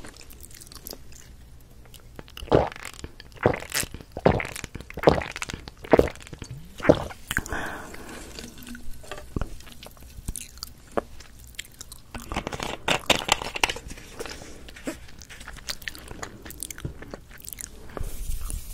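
Water being drunk from a plastic bottle close to sensitive microphones: about six loud swallows a little under a second apart. Later comes a short burst of plastic crackling and clicking as the bottle is handled and capped.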